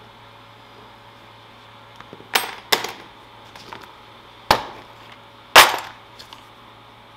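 Four sharp plastic-and-hard-object clacks against a workbench cutting mat, the last the loudest. They fit a pen being set down and a clear plastic organiser box of metal pieces being put down and its lid snapped open.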